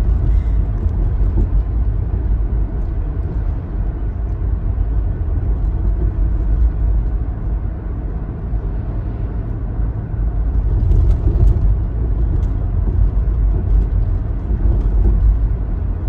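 Steady low rumble of a car driving along a road, heard from inside the cabin.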